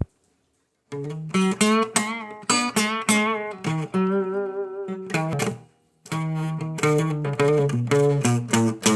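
Solo guitar playing picked single notes with vibrato, starting about a second in, breaking off briefly near six seconds, then going on with a quicker run of notes.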